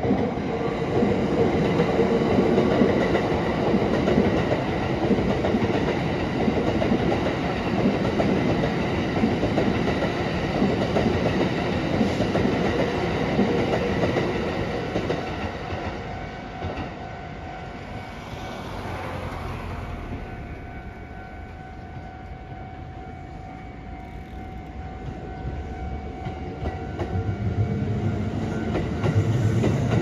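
Kintetsu electric commuter train running through a level crossing, wheels clacking over the rail joints, while the crossing's warning bell rings without a break. The train noise dies away about halfway through, and another train comes through loudly near the end.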